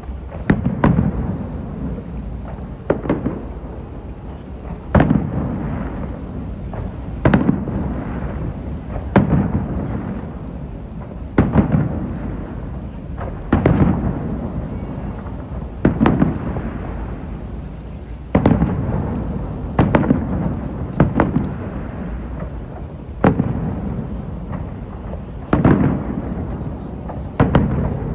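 Aerial fireworks bursting overhead, a loud boom every two seconds or so, each trailing off in a long rolling echo.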